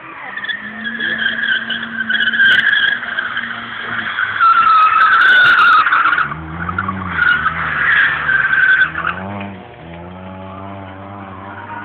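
Car tyres squealing through a long drift over the engine's running note, the squeal loudest about halfway through. The squeal stops near the end and the engine revs up briefly, then runs on steadily.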